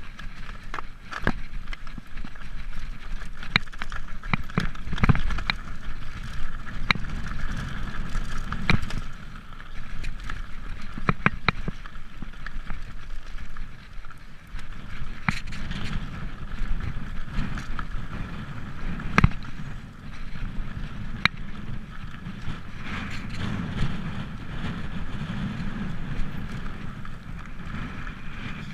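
Mountain bike rolling along a rocky singletrack: tyres running over stones and dirt, with many irregular sharp knocks and rattles as the bike hits rocks, the loudest about two-thirds of the way through.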